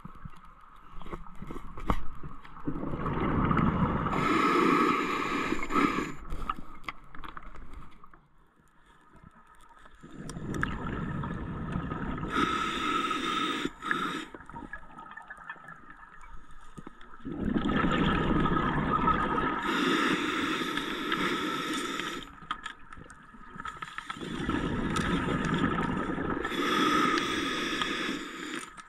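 Scuba diver breathing through a regulator underwater: four long gurgling rushes of exhaled bubbles, each lasting a few seconds, with quieter pauses for the inhale between them.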